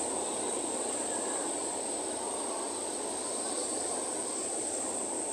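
Steady drone of a fishing trawler's engine running, with a constant high hiss over it.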